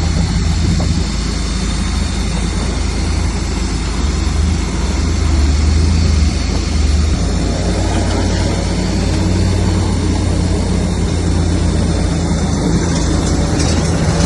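Bulldozer's diesel engine running, a steady low drone.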